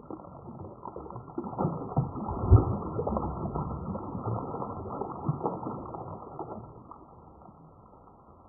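A hooked fish thrashing at the water's surface close in by the landing net, a run of irregular splashes that is loudest a couple of seconds in and dies down near the end.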